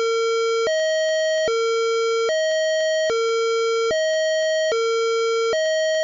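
Outdoor warning siren sounding the flood-warning signal: a high-low tone that switches between two notes a little under once a second, the pattern used by European ambulances and police vehicles.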